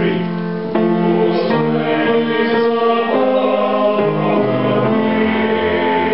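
Mixed chamber choir of men's and women's voices singing a slow passage of held chords that change about once a second.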